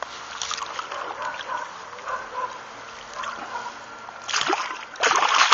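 Hooked carp thrashing in shallow water at the bank, splashing irregularly, with the loudest splashes near the end.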